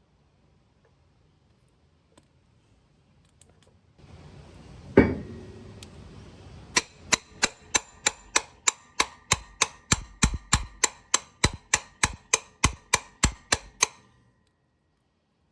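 Hammer blows on metal: one heavy blow about five seconds in, then a steady run of about two dozen ringing strikes, three or four a second, that stops near the end. A stubborn part is being knocked loose during the old Saginaw transmission removal.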